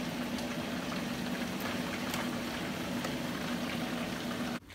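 Cabela's electric food dehydrator running: a steady fan whir with a constant low hum, which stops abruptly near the end.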